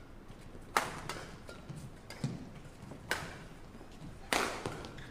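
Badminton rackets striking a shuttlecock in a rally: three sharp hits, about a second in, about three seconds in and just after four seconds, each ringing briefly in a large hall, with fainter taps and thuds between.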